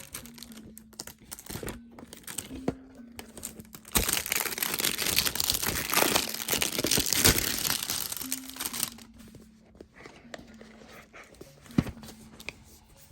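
Packaging being crinkled and torn open by hand while unboxing a supplement box, with a long stretch of loud, dense crinkling in the middle and quieter handling rustles before and after.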